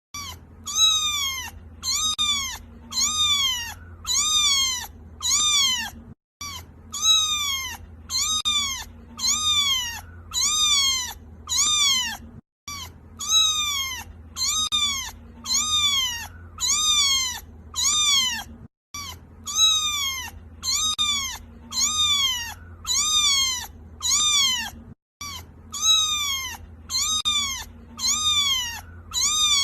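A kitten crying: a fast, insistent run of high-pitched meows, about three every two seconds, each rising then falling in pitch. The run breaks off briefly every six seconds or so and starts again, as a repeating loop would. A faint steady low hum lies underneath.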